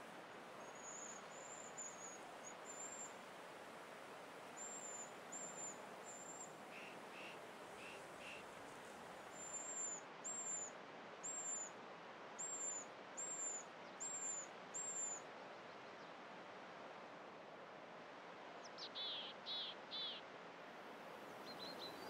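Eurasian pygmy owl fledglings calling: thin, very high-pitched short notes, first in scattered runs, then repeated about every half second for several seconds, over a faint steady forest hiss. A few lower, falling chirps come about three seconds before the end.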